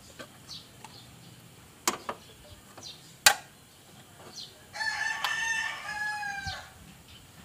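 A rooster crows once, a call of about two seconds that drops in pitch at its end, starting about five seconds in. Before it come a few sharp clicks and knocks from plastic bottles being handled, the loudest about three seconds in.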